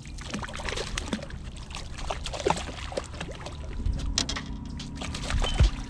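Water splashing and sloshing in irregular small splashes, with scattered clicks and knocks over a low rumble.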